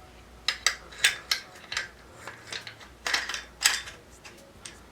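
Metal parts of an RF-15 rifle clicking and scraping together as a part is worked into its groove during reassembly: a run of short sharp clicks, most of them in the first two seconds and again around the third and fourth second.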